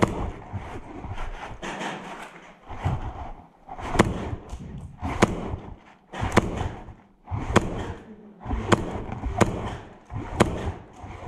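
Footsteps on gritty concrete, a regular tread of sharp heel clicks with low thuds and scuffing, about one step every second or so.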